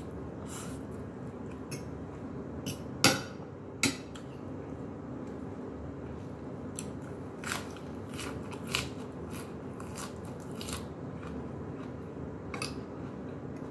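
A person eating at a table: a fork clicking against a plate, with biting and chewing of noodles and lettuce. The two sharpest clicks come about three and four seconds in, and a few lighter ones come later, over a steady low hum.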